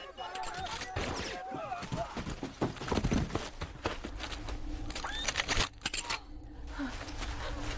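Film sound effects of an armored suit's shoulder-mounted gun firing on its targets: a quick run of sharp shots and metallic clicks, then a cluster of bright metallic clinks about five seconds in, over a steady mechanical hum.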